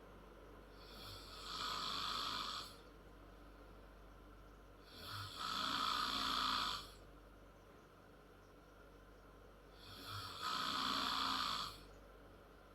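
A 10-year-old girl snoring loud and hard in her sleep: three long snores, about four and a half seconds apart, with quieter breathing between them.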